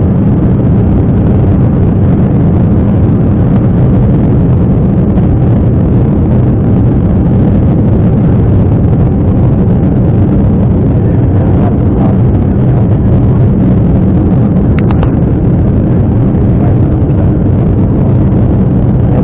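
Jet airliner cabin noise after takeoff: a steady, deep roar of the engines and rushing air, heard inside the passenger cabin.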